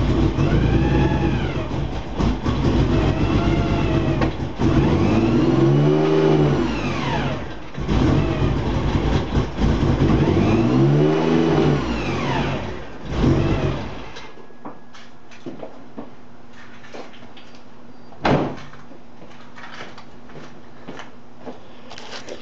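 Mitsubishi Galant VR-4's brand-new engine running just after startup and being revved several times, each blip rising and falling in pitch. It shuts off about 14 seconds in, leaving a low hum with a single sharp knock near 18 seconds.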